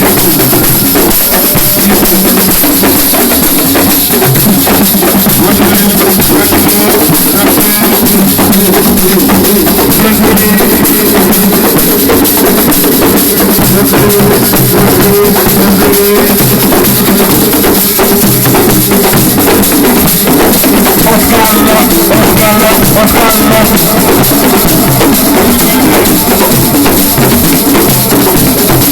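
Loud music with a drum kit and bass drum keeping a steady beat, playing without a break.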